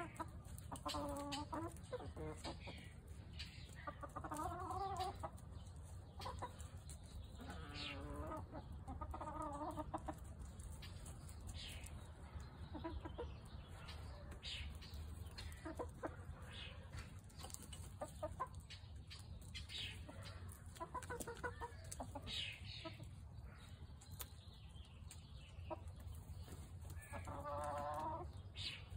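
Chickens clucking: half a dozen drawn-out calls spread through, with short clicks in between.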